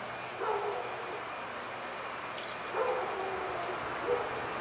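A dog whining in three drawn-out, slightly falling calls, the last one short.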